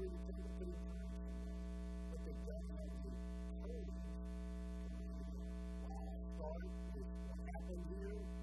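Steady electrical mains hum with faint background music.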